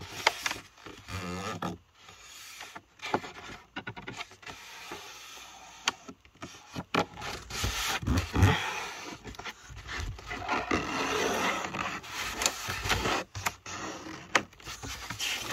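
A sheet of A4 paper being folded lengthwise by hand, rubbing and scraping against the surface beneath as the crease is pressed flat. The rustling comes in irregular swishes with a few sharp taps.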